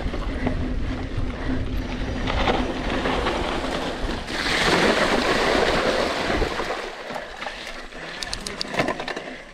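Mountain bike ridden through a shallow creek: the tyres splash and spray water for about two seconds midway, the loudest part. Before that comes a steady rumble of rolling over the dirt trail. After it the ride goes quieter, with a few sharp clicks near the end.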